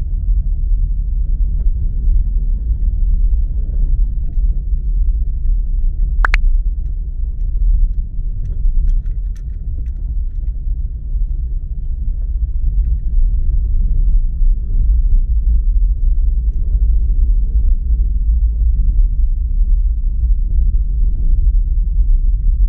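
A car driving, its engine and tyre noise making a steady low rumble, with one sharp click about six seconds in.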